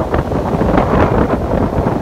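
Strong wind buffeting the microphone in a steady, rumbling rush, over the wash of ocean waves.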